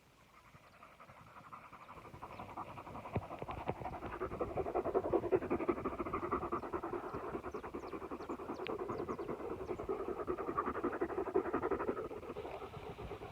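A dog panting quickly and steadily, growing louder over the first few seconds and then holding.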